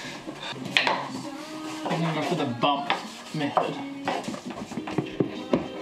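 Scattered clacks and knocks at irregular intervals, with a faint voice underneath.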